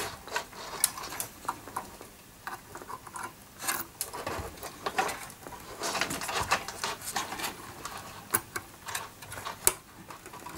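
Irregular small clicks, taps and rustles of hands handling computer power cables and hardware on a test bench.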